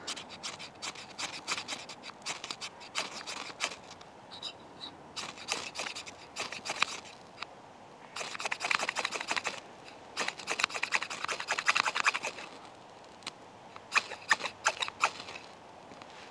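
Knife spine scraped again and again down a ferrocerium fire steel, striking sparks onto water-soaked tinder: runs of quick rasping strokes with short pauses between them.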